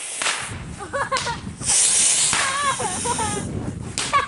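Consumer firework fountain hissing as it sprays sparks, with a sharp pop just after the start and another near the end; voices call out over it.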